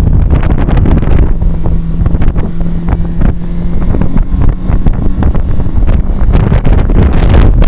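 Loud wind rumble buffeting the microphone, with a steady low hum from about a second in until past the middle.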